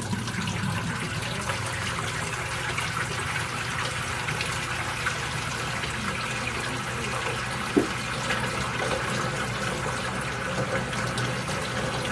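Water rushing steadily into a washing machine drum as it fills, over a steady low hum, with one short knock about eight seconds in.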